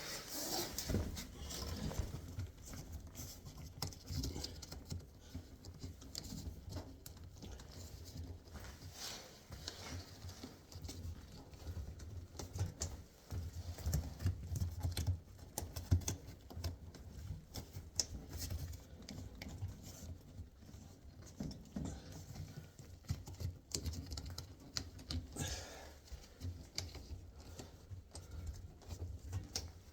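Hands working the rubber door boot gasket of an LG front-load washer onto the lip of its door opening: irregular soft taps, clicks and rubbing, over a low hum.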